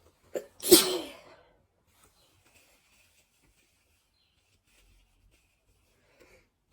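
A single loud sneeze from a person with a head cold, about a second in. A short sharp catch comes just before it, and the voiced part falls in pitch as it trails off.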